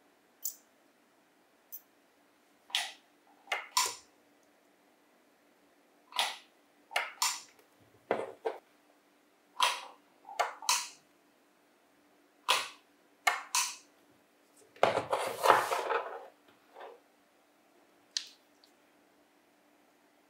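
Hand work on small tool parts: scattered, irregular clicks and knocks of parts and tools being picked up and set down, with a short burst of clattering about fifteen seconds in.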